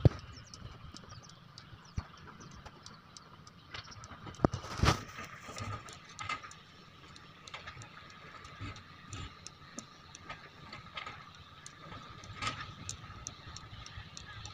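Excavator loading river stones into a dump truck: the engine runs with a steady whine under scattered knocks and clatters of rock, with a louder clatter about five seconds in.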